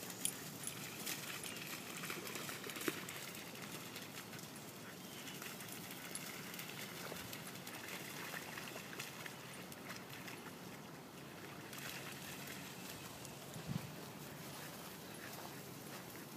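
Faint open-air ambience with no clear voice or animal call, broken by a few soft clicks near the start and a short low thump near the end.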